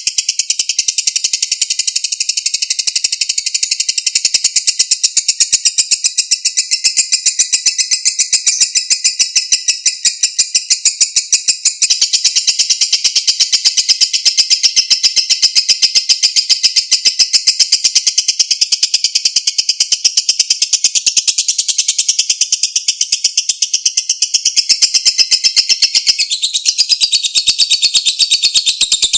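Lovebird's long unbroken 'ngekek' song: a continuous, rapid run of shrill chattering chirps repeated many times a second without a pause. The pattern shifts slightly about twelve seconds in and again near the end.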